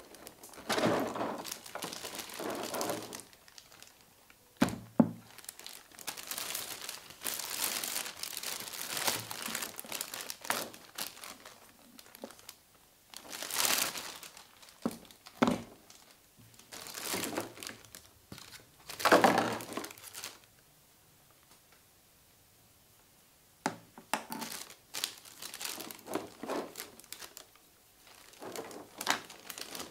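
Thin clear plastic packaging bags crinkling and rustling in repeated bursts as they are handled and pulled off a figure, with a few sharp knocks in between and a pause of a few seconds about two-thirds of the way through.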